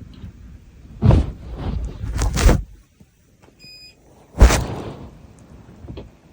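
Several loud noises, then a short electronic beep of the light being switched off, followed about half a second later by a loud sneeze and a fainter one near the end: the sneezes the uploader takes for fake ones set off by the light going out.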